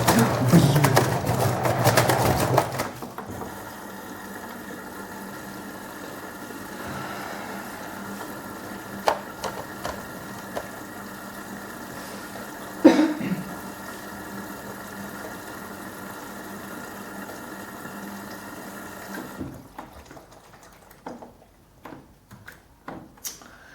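LG front-loading washing machine banging hard for the first few seconds, the sign of an unbalanced load in the drum during spin. The motor then runs on steadily with a whine and one sharp knock. About 19 seconds in it stops, followed by a few light clicks.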